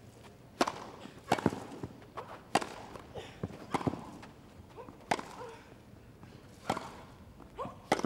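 Tennis balls struck by rackets in a rally: the serve, then a string of sharp pops from the returns, about one every second or so.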